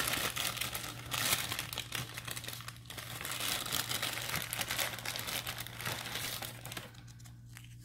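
Plastic treat bag inside a box of dog biscuits crinkling as it is handled and opened, a dense crackle that thins out near the end.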